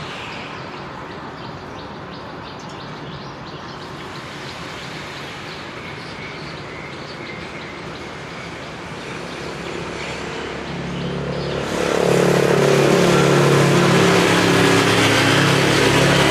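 Road traffic: a steady background hum of vehicles with faint bird chirps, then about eleven seconds in a motor vehicle comes close. Its engine note and road noise rise quickly and stay loud to the end.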